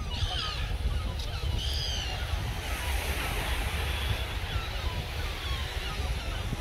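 Small waves washing on a sandy beach with wind buffeting the microphone, making a steady low rumble; a few short high chirps in the first two seconds.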